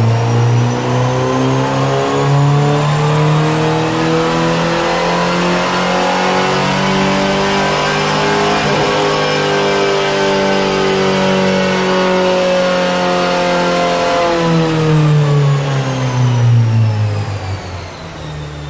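1990 Ford Ranger's 2.3-litre four-cylinder engine in a wide-open-throttle chassis-dyno pull: the pitch climbs steadily for about nine seconds, holds near the top, then falls away from about fifteen seconds in as the throttle is released and the engine winds down.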